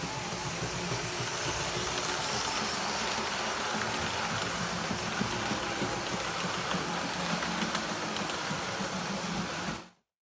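Model train running on the layout: a steady hum of the locomotive's motor and the rattle of wheels on the track. It cuts off abruptly just before the end.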